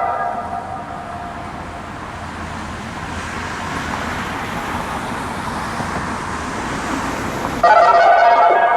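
Whelen WPS-2910 siren's loudspeakers playing a loud, buzzy, distorted electronic tone that fades out right at the start and cuts back in suddenly near the end. In between there is a steadier, quieter wash of sound.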